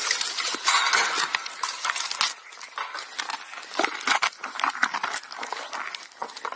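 Camels chewing prickly pear cactus pads: a dense run of irregular wet crunches and clicks, louder in the first two seconds.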